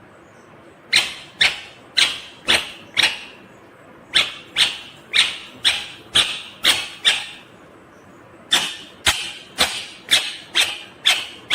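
Indian ringneck parakeet calling in harsh, sharp screeches, about two a second, in three bouts of five to seven calls with short pauses between.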